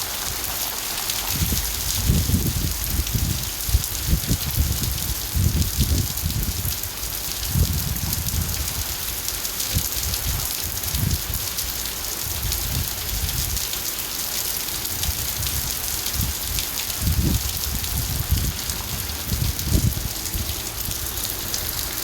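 Steady rain falling, a constant hiss, with irregular low thumps scattered through it.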